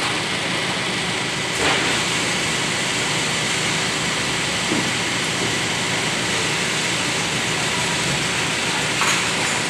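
Steady hiss of a fast-food restaurant's indoor background noise, with a short clatter about two seconds in and another near the end.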